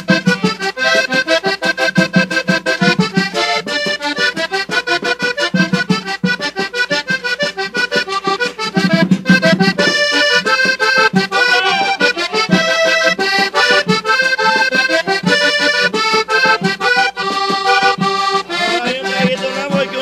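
Vallenato button accordion playing a fast instrumental passage of quick melodic runs over a steady percussion beat, in the break between sung verses.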